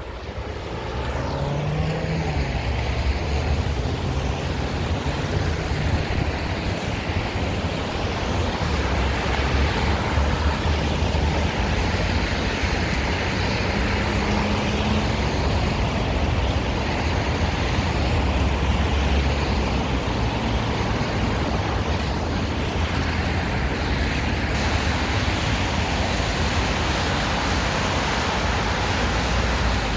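Steady road traffic noise from cars going by, with a low rumble throughout and a passing engine note briefly rising near the start and again midway.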